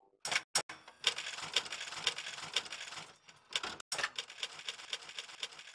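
Logo-animation sound effect: a mechanical clatter. Two sharp clicks, then a dry crackling, ratcheting rattle that breaks off after about two seconds for another pair of clicks and then runs on, fading near the end.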